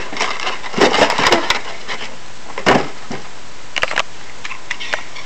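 Handling noises: a few sharp clicks and knocks of small hard objects being picked up and set down, a cluster about a second in, one near the middle and two near the end, over a steady hiss.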